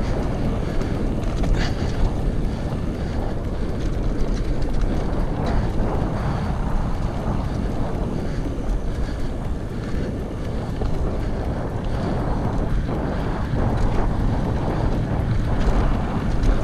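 Wind rushing over the microphone of a rider on a full-suspension mountain bike, mixed with steady tyre rumble and a few small rattles from the bike.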